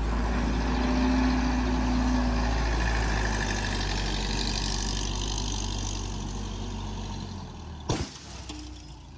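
Military wrecker's diesel engine running as it tows a crane with a blown tire across gravel, the noise fading as they move away. A single sharp knock about eight seconds in.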